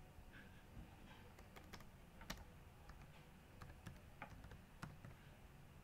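Faint typing on a computer keyboard: an irregular run of about ten keystrokes, most of them in the middle few seconds.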